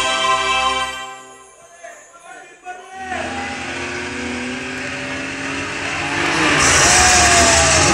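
Film soundtrack played in a cinema: a music sting fades out in the first second and a half. After a short lull, car engines start running about three seconds in and grow louder, with high gliding squeals near the end.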